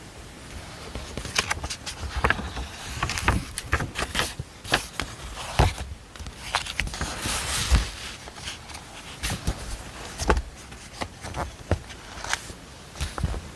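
Irregular taps, clicks and knocks with rustling in between, the sound of objects being handled at a desk.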